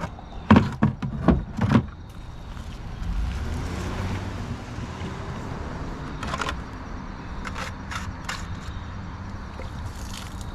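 A vehicle passes on the road as a steady low rumble that swells and fades over a few seconds, with several sharp knocks near the start and a few scattered clicks later.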